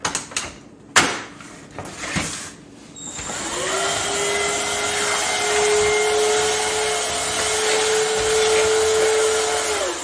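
A few clicks and knocks of handling, then a Hoover ONEPWR cordless stick vacuum's motor spins up about three seconds in and runs steadily with a whirring hum, winding down just before the end. The vacuum is running on its repaired, recharged lithium-ion battery pack.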